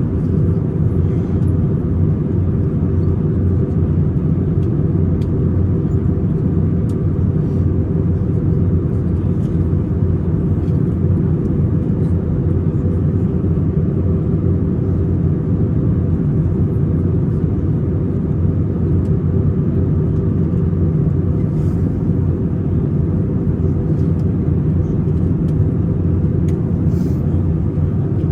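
Steady in-flight cabin noise of an Airbus A320: a low engine and airflow rumble, with faint clicks and rattles here and there.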